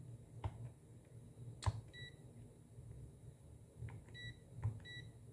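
Handheld LCR meter giving short high key beeps, one about two seconds in and two more near the end, among light clicks of its buttons being pressed while a capacitor is measured.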